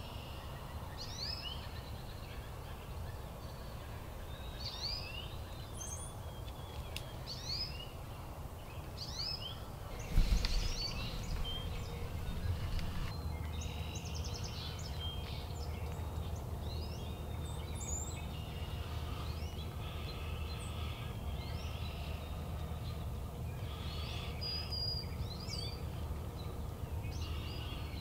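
Wild birds calling in spring woods, a string of short rising chirps repeating every second or so, over a low background rumble. About ten seconds in, one sudden loud thump stands out above everything else.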